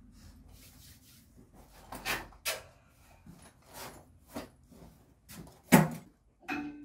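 Light knocks and clicks of hands handling small parts, with one sharper knock nearly six seconds in. A short steady hum starts just before the end.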